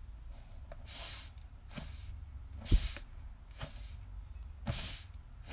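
Air hissing through the vent holes of a large 6S RC truck tire as it is squeezed by hand, in about five short spurts roughly a second apart, the middle one loudest.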